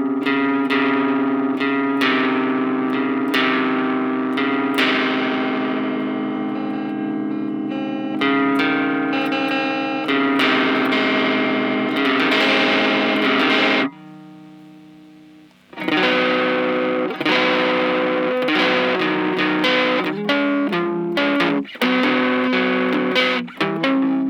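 Electric guitar through an effects unit with some distortion, strumming sustained chords that ring out. About fourteen seconds in it cuts off abruptly, and after a two-second pause it comes back with shorter, choppier strums.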